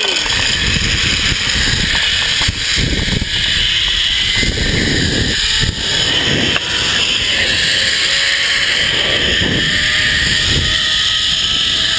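Zip line trolley running fast along a steel cable, with a faint whine that climbs slowly in pitch, under loud wind buffeting the microphone.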